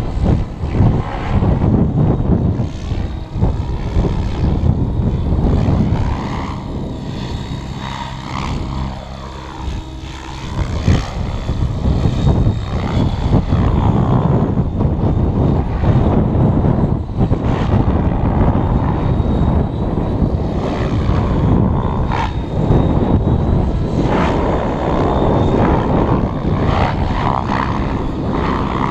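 Electric RC helicopter (Align T-Rex 700 stretched to 800 size, Dominator 490kv brushless motor) flying overhead: rotor blades and motor running continuously, rising and falling in loudness as it manoeuvres, a little weaker about a third of the way in.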